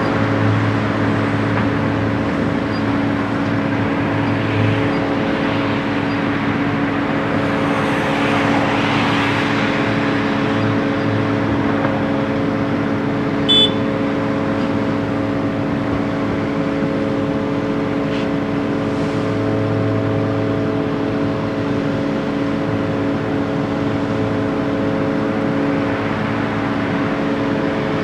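Heavy diesel engine of construction machinery running at a steady speed, with a swell of rushing noise about eight seconds in and a single short sharp clink about halfway through.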